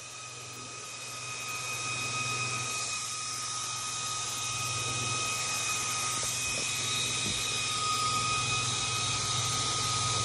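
Cooling fan of a SPRITECH portable PCP air compressor running on its own after the pump is switched off: a steady whir with a high whine and a low hum, growing louder over the first two seconds.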